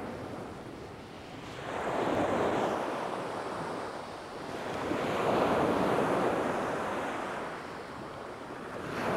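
Sea waves breaking and washing up a shingle beach, swelling about two seconds in and again about five seconds in, and building once more near the end.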